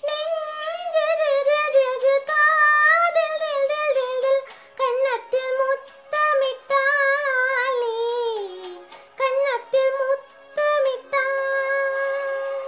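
A young girl singing the melody of a Tamil film song, with vibrato, in phrases broken by short pauses. She holds a long note near the end.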